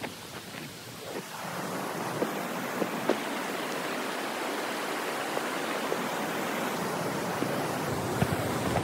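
The Yamuna river's mountain stream flowing, heard as a steady rush of water, with a few faint knocks in the first few seconds.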